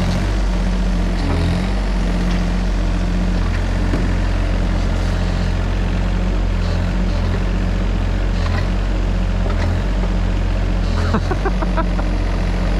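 Diesel excavator engine running steadily as it digs, its low hum shifting slightly in tone now and then, with a few short clicks or knocks near the end.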